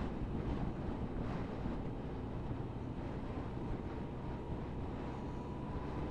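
Suzuki GSF1250 Bandit's inline-four engine running on the move, under steady wind rush over the microphone.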